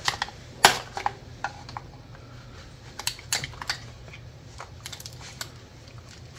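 Scattered sharp plastic clicks and snaps as a panel popper pries Christmas-tree push clips off the valve cover of a 3.6L Pentastar V6 and the wiring harness is worked loose, over a steady low hum.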